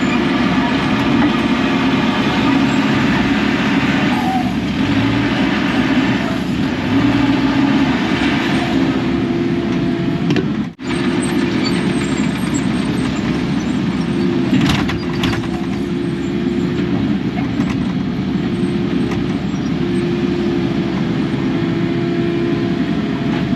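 Kubota KX080 excavator's diesel engine and hydraulics running steadily under work. The sound cuts out for an instant about eleven seconds in.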